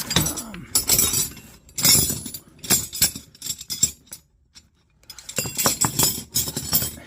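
Steel hand tools, wrenches among them, clinking and clanking against one another as they are handled and set down: clusters of sharp metallic clinks, with a brief lull around the middle.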